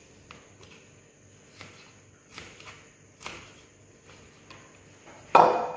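Knife cutting vegetables on a plastic cutting board: scattered light taps, then one much louder clatter with a short ring about five seconds in.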